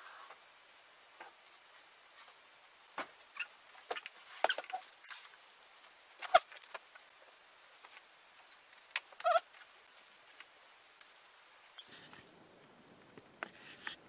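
Scattered knocks, bumps and fabric rustles as an armchair is put in place and a cloth throw is spread over it. The loudest is a single sharp knock about six seconds in.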